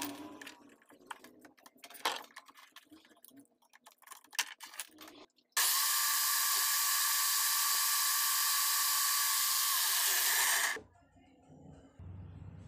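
Scattered clicks and scrapes as copper winding wire is stripped from a Makita 9553B angle grinder armature. About five seconds in, an electric drill spins the armature for about five seconds with a hacksaw blade held against it: a loud steady whir with a hiss that stops abruptly.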